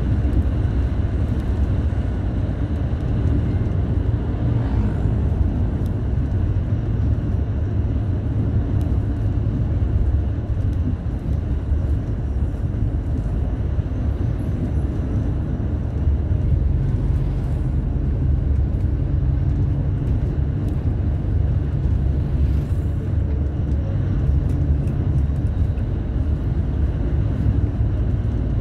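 Steady low drone of a vehicle's engine and road noise while driving, growing slightly louder about halfway through.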